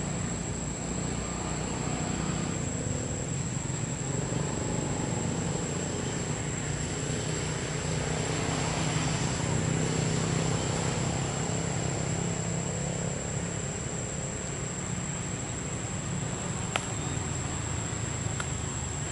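Steady outdoor background noise: a low, even rumble with a constant high-pitched whine over it, and a single sharp click near the end.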